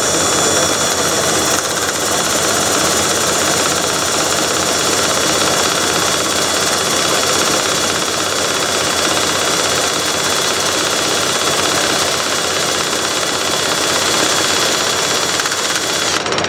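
A Makita cordless drill with a sanding disc, held against a wooden workpiece spinning off-center on a wood lathe: the lathe and the drill run together with the rasp of sanding, and a steady high whine cuts off about a second before the end.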